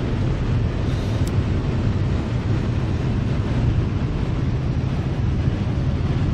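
Steady low rumble of a vehicle driving at highway speed: engine and road noise.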